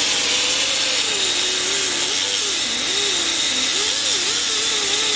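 Air-powered die grinder with a small abrasive disc grinding the edge of an aluminium radiator: a steady loud hiss with a whine that wanders up and down in pitch.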